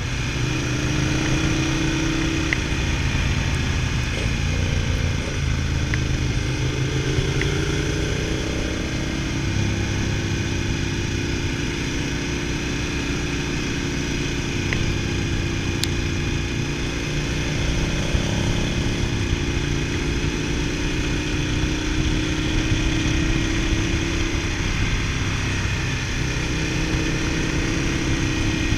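Ducati Multistrada 1000DS's air-cooled L-twin engine running while riding, its pitch rising and falling gently with throttle changes, over a steady rush of wind noise.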